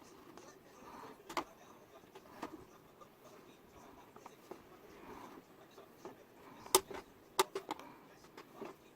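Hot soldering iron tip punching holes through a plastic 2-liter soda bottle: faint, scattered light clicks and taps, the loudest two about half a second apart past the middle.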